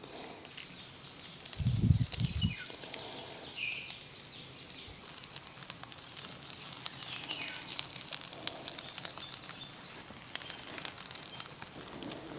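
Outdoor ambience: birds chirping briefly now and then over a light, steady crackling, with a dull low thump about two seconds in.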